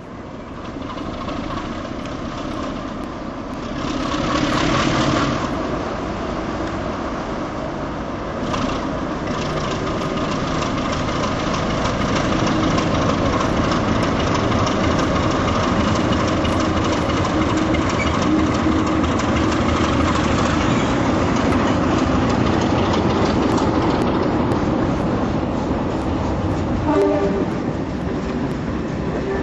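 A BR green Class 33 diesel locomotive's engine working as it draws a train out, getting louder over the first several seconds with a louder surge about four seconds in. The coaches rumble and clatter over the rail joints as they pass.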